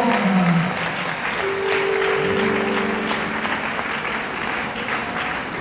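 Congregation applauding in a large hall, with soft held notes from an instrument, likely a keyboard, standing out briefly in the middle.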